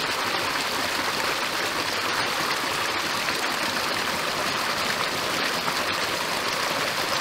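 Small stream pouring over a short drop between tree roots: a steady splashing rush of water.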